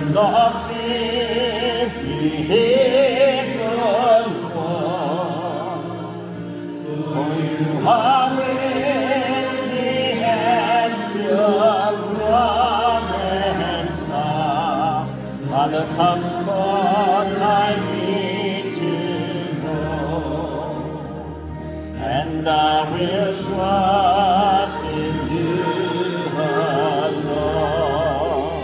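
Hymn singing: a voice with wide vibrato over sustained low accompaniment chords, sung in long phrases with brief breaks between them.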